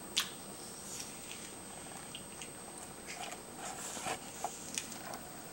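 A young child biting into and chewing a crisp apple: a sharp crunch about a quarter second in, then small scattered crunching clicks as he chews, with a few more crunches around four seconds in.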